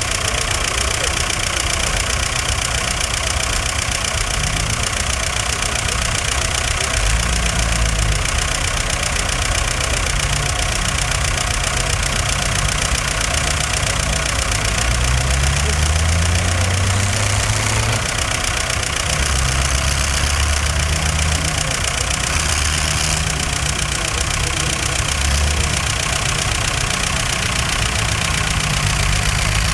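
Diesel engines of vintage tractors and a wheeled excavator running under load, their note rising and falling several times as the machines dig and drive, over a steady hiss.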